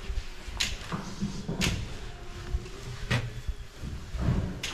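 Footsteps knocking on a metal staging plank, four heavy steps spaced about a second or more apart, over a low background rumble.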